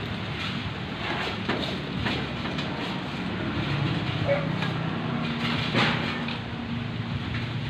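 A few sharp clicks and knocks of blue PVC pipe and fittings being handled and pushed together, the loudest about six seconds in, over a steady low background hum.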